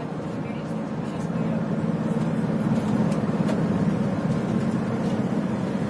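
Steady road and engine rumble heard from inside a vehicle driving along a highway, growing a little louder about a second in.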